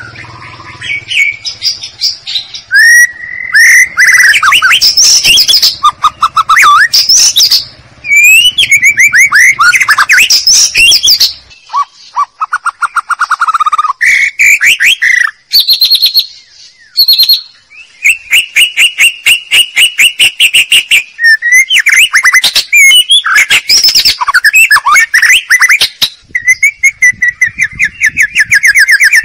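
White-rumped shama song played loud as a lure call: a continuous string of clear whistles, pitch sweeps and fast rapid-fire note runs, broken by brief pauses.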